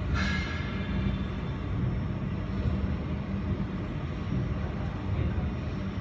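Jewelry laser welding machine and its water chiller running, with a steady low hum of cooling fans. Right at the start comes a brief high ringing sound that fades within half a second.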